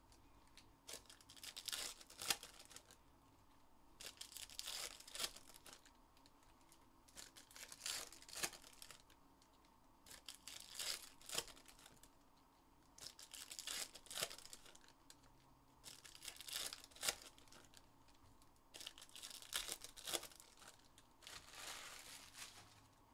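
Foil trading-card pack wrappers being torn open and crinkled, in short crackly bursts every two to three seconds.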